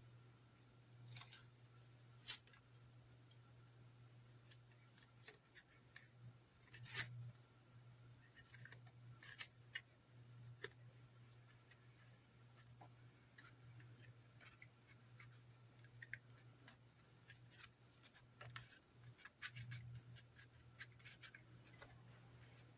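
Scattered small clicks, taps and scrapes of hands working plastic model parts and tools at a workbench, with a sharper click about two seconds in and a louder scrape around seven seconds, over a faint steady low hum.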